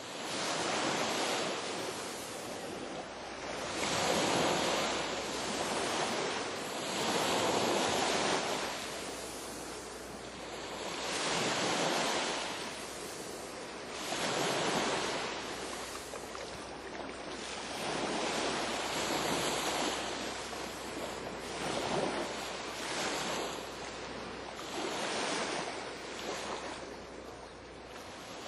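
Sea waves breaking on a shore. The rushing swells and falls away every few seconds.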